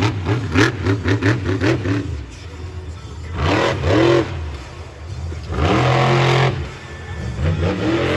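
Monster truck engine revving hard in quick throttle blips, about four or five a second, then two longer rev-ups that swell and fall away, and another starting near the end.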